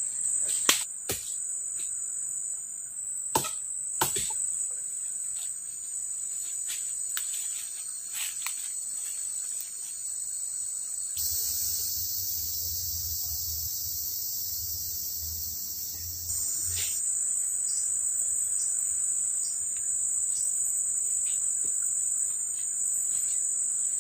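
Tropical forest insects droning steadily at a high pitch. For several seconds in the middle the chorus changes to a louder, wider buzz. A handful of sharp knocks sound in the first few seconds.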